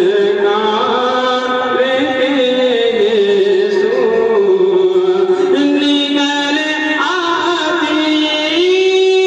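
A man singing a naat, an Urdu devotional poem, as a solo voice, drawing out long ornamented notes that glide between pitches and settling into one long held note near the end.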